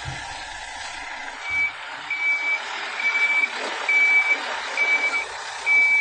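Backhoe loader's reversing alarm beeping, one steady tone repeated about once a second, starting a second and a half in, over the steady noise of the machine working.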